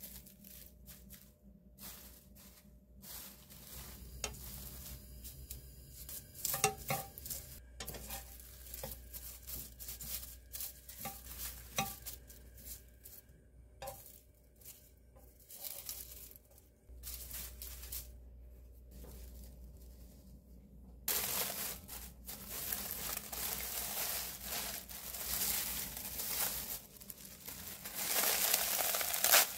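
Dry roasted laver (gim) sheets being handled, torn and crumpled, with scattered crinkles and crackles. About two-thirds of the way through the crackling turns dense and continuous.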